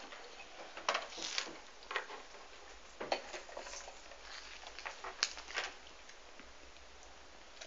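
Irregular rustling and light taps, handling noise as a handheld camera is swung about and carried.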